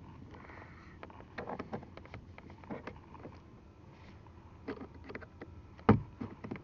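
Scattered clicks and scrapes of a small tool prying at a car's plastic mirror adjustment knob, with one sharp knock near the end.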